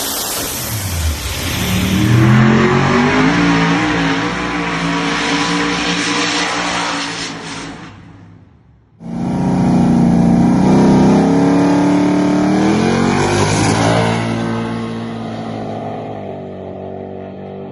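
Turbocharged 427 V8 of a 2005 Chevy Silverado 4x4 accelerating hard, its pitch rising through the revs amid heavy noise before it fades away. After a sudden cut about nine seconds in, another hard pull rises and then fades.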